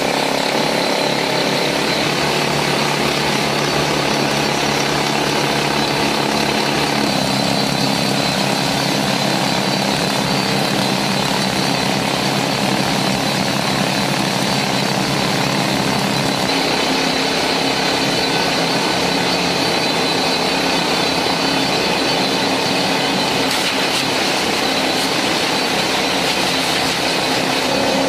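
Kaishan YT28 air-leg pneumatic rock drill running: a loud, steady, rapid hammering with the hiss of exhaust air. Its lower tone shifts about 7 seconds in and again about 16 seconds in.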